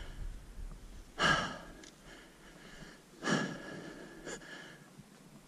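A person breathing, two loud breaths about two seconds apart, close to the microphone.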